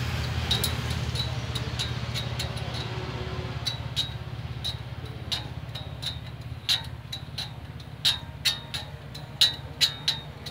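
A hand file strikes and scrapes the steel teeth of a band saw blade as the blade is sharpened by hand. The sharp metallic clicks come more often in the second half. A steady low engine hum runs underneath and fades over the first few seconds.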